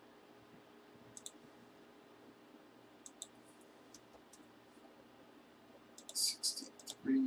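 Computer keyboard and mouse clicks, a few isolated clicks and then a quick cluster of keystrokes about six seconds in, as a title is typed into a price search. A low steady tone starts right at the end.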